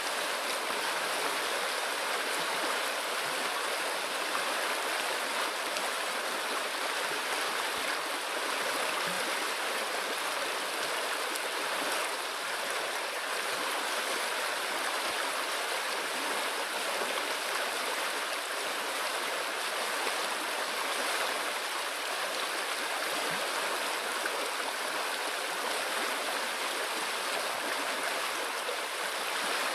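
A river flowing with a steady rush of water.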